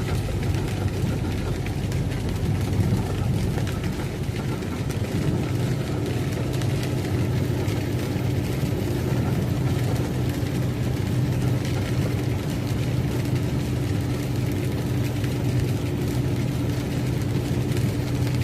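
Steady drone of a semi-truck's engine and road noise heard inside the cab while driving, with a steady higher hum joining about five seconds in.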